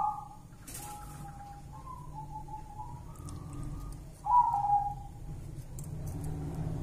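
Zebra dove (perkutut) cooing: a run of soft, whistly notes, the loudest coming a little after four seconds in.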